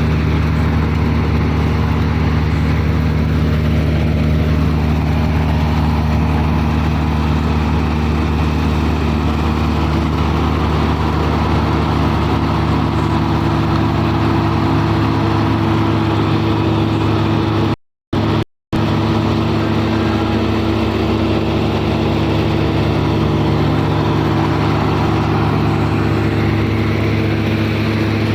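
Combine harvester's diesel engine running steadily, a constant drone with an even pitch. The sound drops out to silence twice, very briefly, about two-thirds of the way through.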